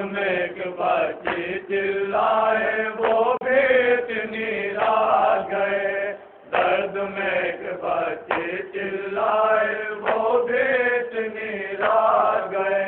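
Men's voices chanting a noha, a Shia mourning lament, in a slow sung line over a steady low hum, with a short break about six and a half seconds in.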